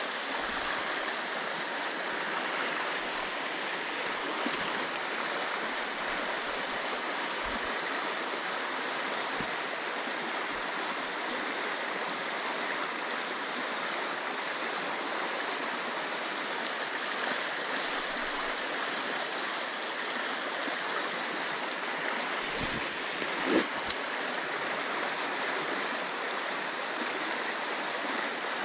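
Mountain stream rushing steadily, with a brief click about two-thirds of the way through.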